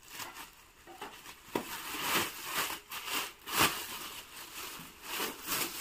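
Clear plastic packaging crinkling and rustling in irregular bursts as hands grip and pull at it.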